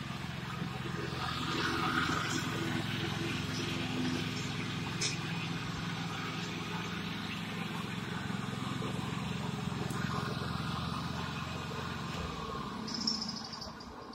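Riding lawn mower engine running steadily, getting quieter near the end.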